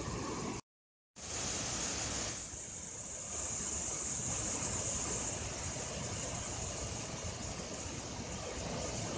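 Water pouring over a low concrete dam spillway and churning below it: a steady, even rush. It is broken by a half-second of silence less than a second in.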